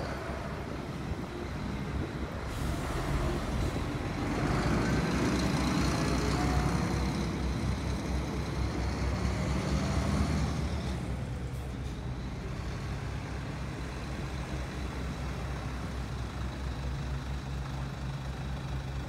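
Heavy truck engine running steadily, with a louder stretch of vehicle noise that builds from about three seconds in and dies away by about eleven seconds.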